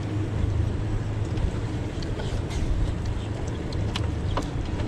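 Boat's outboard motor running steadily at low speed, with wind noise and a few faint clicks about four seconds in.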